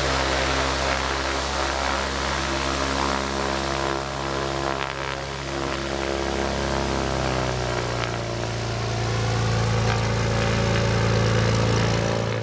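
A Cirrus single-engine light aircraft's piston engine and propeller running at taxi power as the plane taxis past. The engine note dips in pitch about seven seconds in and grows louder near the end.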